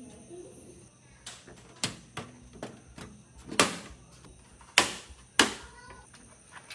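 Plastic front bezel of a PC tower case being pressed onto its steel chassis: a series of sharp clicks and knocks as the clips snap into place, the three loudest about three and a half, just under five and five and a half seconds in.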